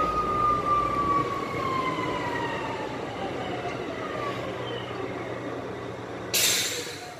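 ÖBB class 2070 diesel shunting locomotive running on the move, heard from on board: a steady low engine drone under a whine that falls slowly in pitch over about five seconds. Near the end comes a short, loud hiss of air.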